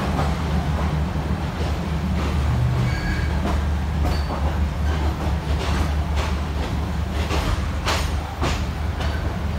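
Passenger train pulling slowly out of the station, heard from on board: a steady low rumble with wheels clacking over rail joints, the sharpest clacks about eight seconds in.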